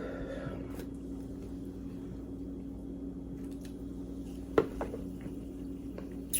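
A person drinking Sprite from a bottle: quiet swallows and a few soft clicks, the sharpest about four and a half seconds in, over a steady low hum.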